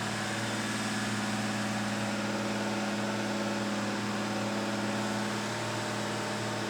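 Freshly installed Chrysler 440 big-block V8 running steadily during camshaft break-in, firing evenly on all eight cylinders.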